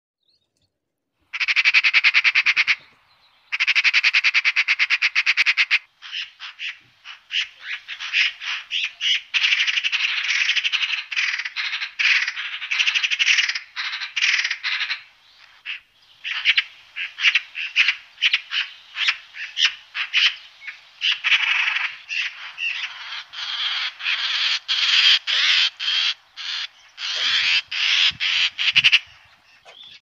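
Magpies chattering: fast, dry rattling calls. Two long, even rattles come in the first six seconds, then many shorter rattles follow one after another, some quick and clipped.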